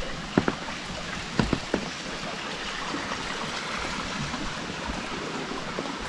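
Steady rain falling, with a few sharp taps in the first two seconds.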